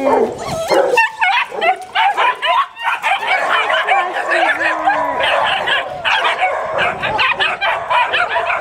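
Dogs in a shelter kennel barking and yipping in a dense, continuous chorus of short overlapping calls, with a drawn-out falling whine about halfway through.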